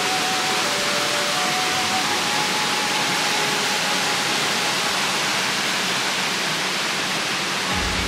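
Steady rushing water of a small cascade pouring into a rocky stream pool, an even hiss that holds at the same level throughout.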